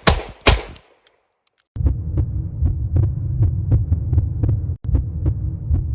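The last two of a rapid string of sharp shots, fired about three a second. After a second of silence comes a steady low throbbing hum with evenly spaced ticks, about four a second.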